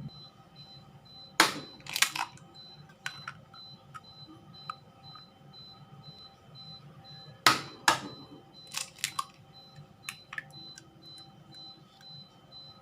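Scattered sharp knocks and clicks of kitchen work, irregularly spaced, the two loudest about a second and a half in and about seven and a half seconds in, over a faint steady hum.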